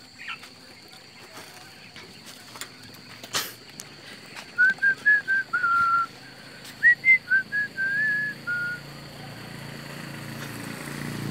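A person whistling a short tune, about a dozen clear notes over some four seconds, starting about four and a half seconds in. A single sharp knock comes just before it.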